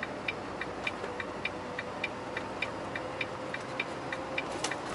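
Truck turn-signal indicator clicking in the cab, an even tick-tock of about three and a half clicks a second, over the low hum of the running truck.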